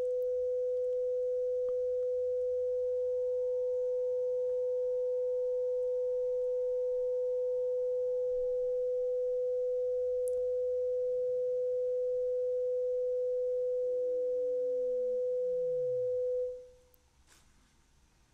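Synthesized 500-hertz sine test tone, steady and loud, with a fainter higher tone that comes in about three seconds in, holds, then glides down in pitch, passing under the 500-hertz tone and falling to a low hum before both stop about sixteen seconds in. It is a frequency-masking test signal: the second tone stands for a distortion product, hidden while near the 500-hertz tone and heard once it moves far from it.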